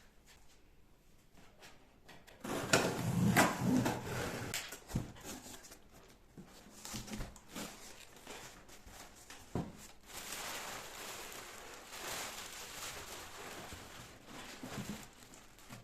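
Household handling sounds: a burst of clattering and knocking about two and a half seconds in, a few single knocks, then a steady rustling from about ten seconds.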